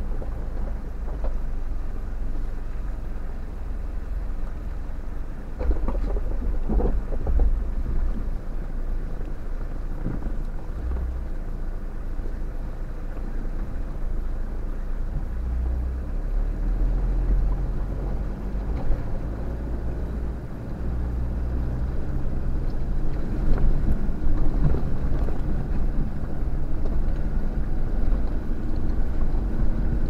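A 4x4's engine running at low speed, heard from inside the cab as the vehicle crawls over rock and climbs out of a river crossing. A few knocks and bumps come about six to seven seconds in, and the engine gets louder in the last third.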